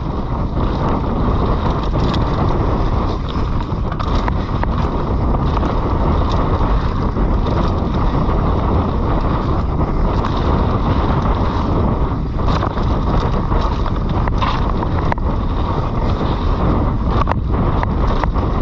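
Wind buffeting the microphone of a downhill mountain bike ride, over a steady rush of tyre and trail noise on wet dirt, with scattered knocks and rattles from the bike over rough ground.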